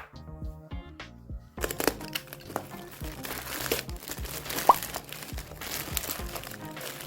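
Packaging being crinkled and crumpled as it is opened, starting about one and a half seconds in, with a brief squeak a little before five seconds, over background music.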